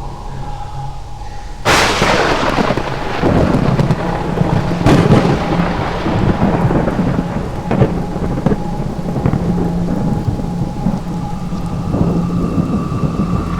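Thunderstorm sound effect: a sudden thunderclap about two seconds in, then a long rolling rumble with a few more cracks, over steady rain.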